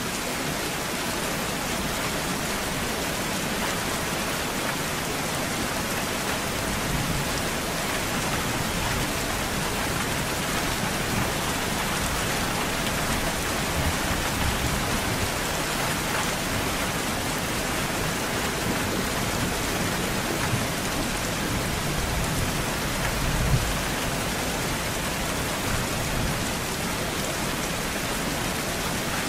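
Steady rain falling, with low rumbles of thunder now and then; the strongest comes late on.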